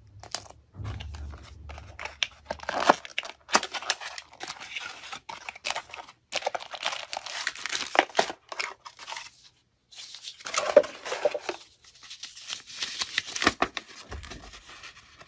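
Hands handling cardboard and paper packaging: irregular rustling and crinkling with small sharp clicks, in several bursts separated by short pauses, with a paper instruction sheet being handled near the end.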